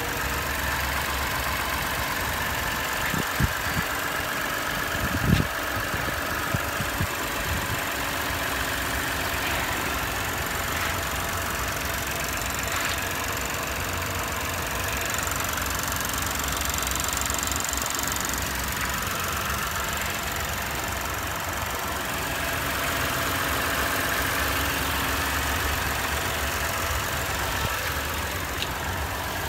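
Lexus IS250's 2.5-litre V6 idling steadily, with a few brief knocks a few seconds in.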